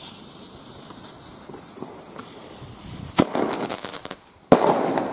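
Firework shell tube: the lit fuse hisses for about three seconds, then the lift charge fires with a sharp bang and a rattle of crackles. About a second and a half later the shell bursts overhead with the loudest bang.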